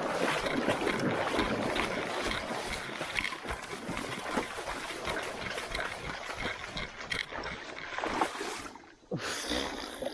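River water splashing and gurgling around a kayak, with many irregular knocks and bumps, after something went wrong with the boat.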